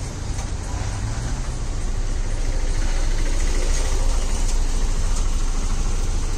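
Steady street traffic noise, with vehicle engines running, growing a little louder about two seconds in.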